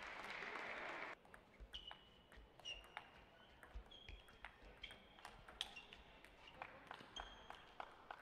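Table tennis ball clicking sharply off rackets and the table in an irregular run of strokes, many followed by a short high ring. A faint hiss during the first second stops abruptly.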